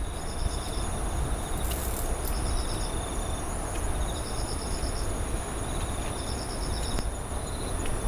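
Night insects chirping: short trills repeating about every two seconds over a steady high-pitched buzz, with a low background rumble beneath.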